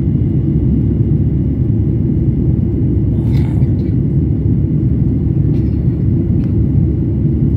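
Steady low rumble of jet airliner cabin noise in flight, engines and airflow heard from inside the cabin, with a brief noise about three seconds in.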